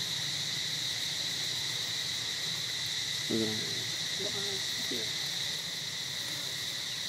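Chorus of insects in the forest: a steady, high-pitched buzzing drone that does not let up.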